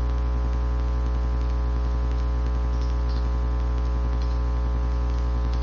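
Steady electrical mains hum with a stack of even overtones, loud and unchanging.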